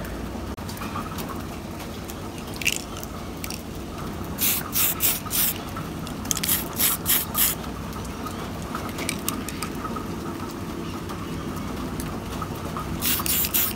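Spray paint hissing out in short, quick bursts: one near the start, runs of about four in the middle, and several more near the end, over a steady low hum. The bursts are light mist coats of matte black over grey primer on a model truck engine, building up shadow layers.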